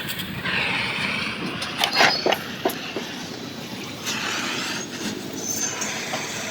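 Metal scraping and screeching in patches, with thin high squeals over it and a few sharp knocks about two seconds in: metalwork on a truck body.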